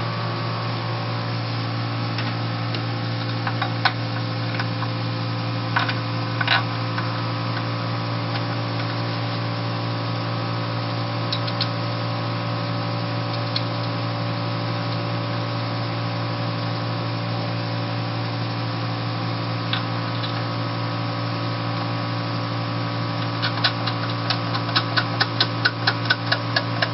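A steady mechanical hum with several steady tones, over which metal parts of a flexographic label press's print unit (rods, rollers and adjustment knobs) are handled and fitted, making scattered sharp clicks and taps. Near the end comes a quick run of clicks, about three a second.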